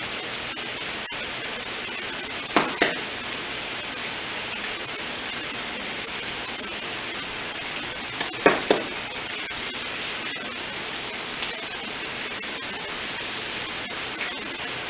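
Chicken, peppers, onions and smashed red potatoes sizzling on a hot gas flat-top griddle, a steady frying hiss. Two pairs of light clicks come about two and a half seconds in and again about eight and a half seconds in.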